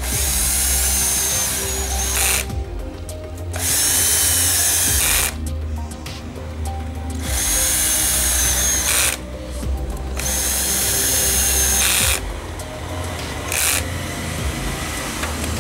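Cordless drill/driver running to tighten the clutch pressure-plate bolts on a Yamaha Saluto 125 engine. It runs in four spells of about two seconds each with short pauses between, then gives a brief burst near the end.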